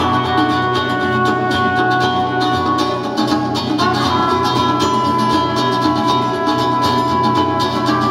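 Live rock band playing a loud instrumental passage: a dense, rhythmic plucked-string texture under sustained held notes that change pitch about four seconds in.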